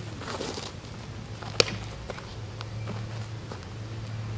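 A softball popping once into a leather fielding glove, a single sharp smack about one and a half seconds in, with a couple of faint ticks after it over a low steady hum.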